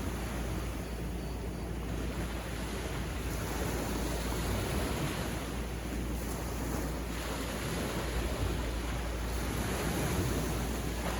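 Sea waves washing onto a beach in a steady, continuous rush that swells and eases gently, with some wind on the microphone.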